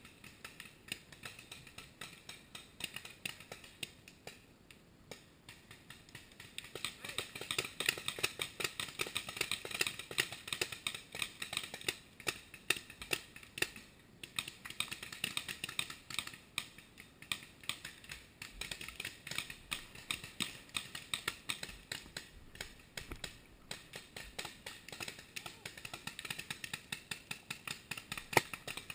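Paintball markers firing from several players, a dense stream of sharp pops that thickens about seven seconds in and thins out again near the end.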